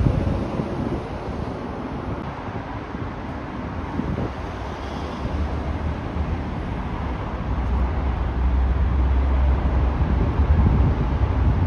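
Buses and traffic passing close by, a diesel engine's low rumble building through the second half, with wind buffeting the microphone.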